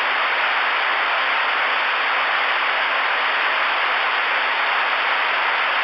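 Steady static hiss from a 10-meter radio's receiver with the squelch open and no station transmitting, with a faint low hum under it.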